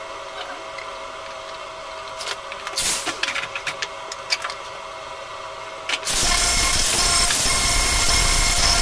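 A few light clinks and knocks over a faint steady hum. About six seconds in, an angle grinder cuts in abruptly and grinds down a fresh weld seam on the steel door patch, a loud steady grinding that continues.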